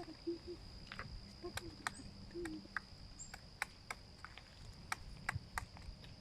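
Irregular sharp taps, a few each second, typical of a woodpecker pecking. Under them a steady high insect trill runs on, and a few short low calls sound in the first half.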